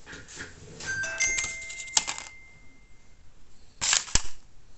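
A brief ringing ding made of several pitches, about a second in, one tone lingering for a second or so, with light clicking around it. Then a couple of sharp clicks near the end.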